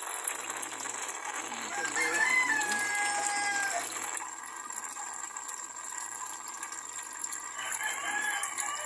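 A rooster crowing once, one long call about two seconds in, with a second, shorter call near the end, over a steady hiss that stops about four seconds in.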